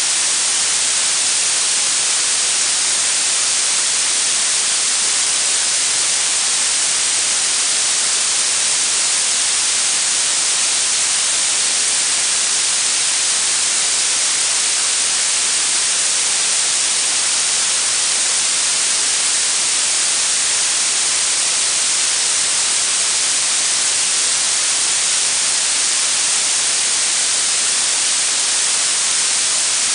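Blue noise: a steady, even hiss weighted toward the high frequencies, with no change in level or pitch.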